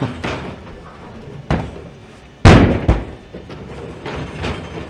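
A series of thuds from a Boston Dynamics Atlas humanoid robot's feet striking scaffold platforms as it moves and jumps. The loudest is a sharp impact about two and a half seconds in, with smaller knocks before and after it.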